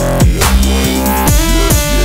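Electronic dance music in a dubstep style, with a heavy bass line and regular drum hits.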